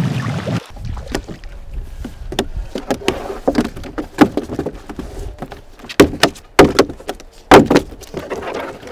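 Trout splashing and churning at the pond surface, cut off abruptly under a second in. Then a run of sharp knocks and wet slaps, the loudest near the end: trout tipped from a landing net into a plastic tub, flapping against the net and the tub's sides.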